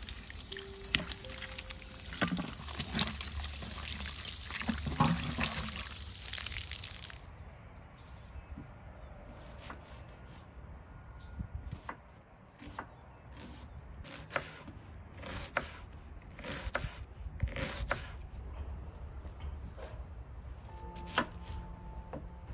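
Running water splashing over onions as they are rinsed by hand in a steel colander, stopping suddenly about seven seconds in. Then single knife strokes on a wooden cutting board, about one a second, as an onion is cut.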